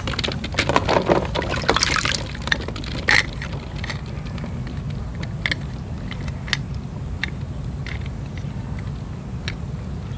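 Water splashing and sloshing as a hand rummages in a tub among floating plastic balls for the first three seconds, then scattered drips and light clicks as a wet plastic toy car is handled. A steady low hum runs underneath.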